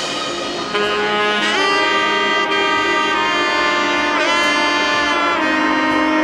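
Instrumental background music: a melody of long held notes, with slides in pitch between some of them.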